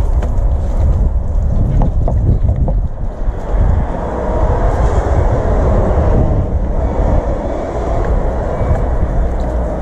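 Water-fed pole brush scrubbing window glass, with a steady low rumble of wind on the microphone underneath.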